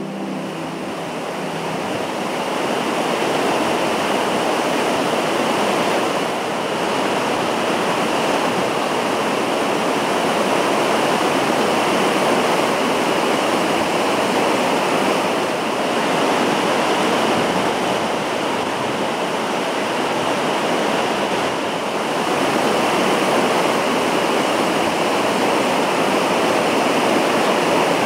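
Steady rush of falling water, a continuous even roar that builds over the first few seconds and then holds.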